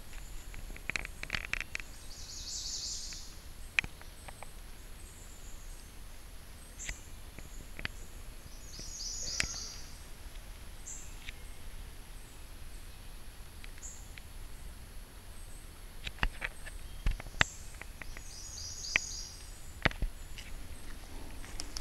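Birds chirping in short, repeated calls, with sharp clicks at irregular times over a low steady background.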